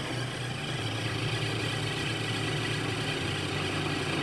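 Electric food processor running steadily at full speed, its motor hum and blade noise constant as it purées tofu, broccoli and seasonings into a pâté.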